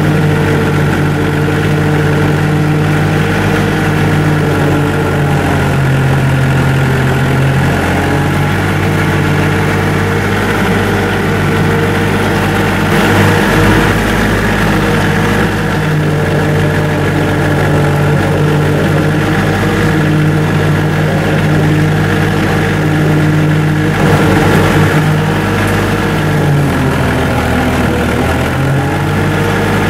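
Bobcat CT230 compact tractor's diesel engine running steadily at working speed while driving a 60-inch King Kutter rotary mower through tall grass. The engine note sags briefly twice, about a quarter of the way in and near the end, and comes back up each time.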